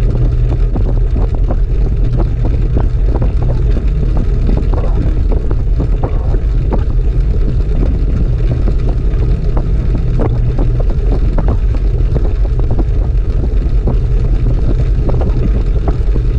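Wind rush on a bike-mounted GoPro at speed, a steady deep rumble, over the hum of track-bike tyres rolling on the wooden velodrome boards, with frequent light irregular ticks.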